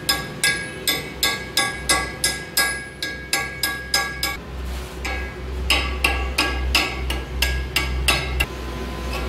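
Hammer blows on a chisel driven into a steel truck wheel hub, about two strikes a second, the hub ringing after each blow. About halfway a low steady hum comes in under softer, continuing strikes, and the hum stops near the end.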